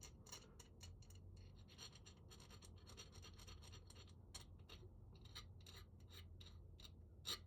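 Small hand file rasping on a metal lock part in short, faint strokes, about two to three a second, deburring a spot that was scraped up during the rekey.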